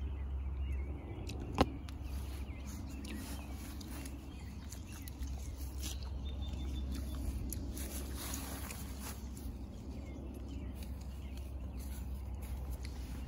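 Outdoor ambience: a steady low rumble with faint scattered small sounds, and one sharp click about one and a half seconds in.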